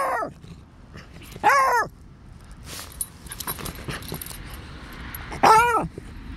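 Beagle barking in play: three short, high barks that rise and fall in pitch, one at the start, one about a second and a half in and one near the end.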